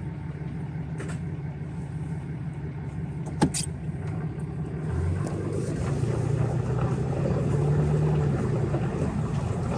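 Ram pickup's diesel engine running, heard from inside the cab, with a single sharp click about three and a half seconds in. The engine note grows louder from about six seconds in as the truck pulls away on the dirt road.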